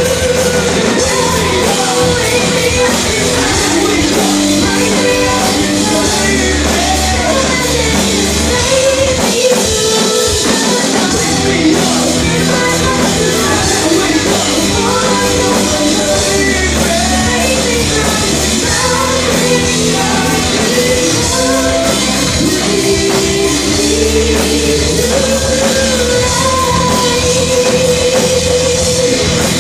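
Rock song with a sung melody over a full band and drums, playing loudly and steadily.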